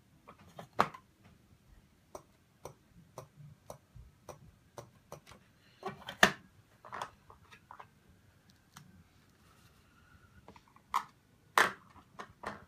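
Irregular light clicks and taps of plastic lenses being set into and lifted out of the cups of a plastic UV lens tester and laid down on a table, with a few louder knocks about six seconds in and near the end.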